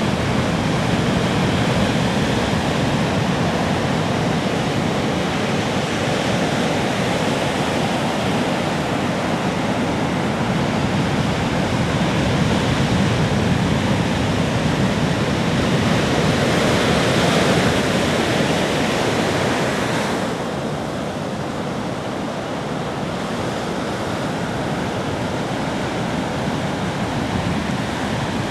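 Ocean waves breaking and washing on a beach, a continuous surf hiss that swells and eases slowly, dropping off a little about twenty seconds in.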